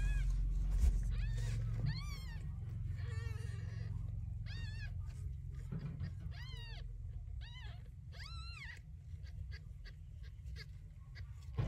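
Six-day-old kittens mewing: about eight high, thin cries that rise and fall, roughly one a second, then only short faint squeaks near the end. A low steady hum runs underneath.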